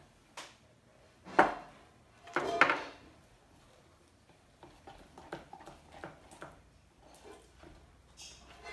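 Household objects handled on a tabletop: two loud knocks and clatters in the first three seconds, then a string of faint light taps.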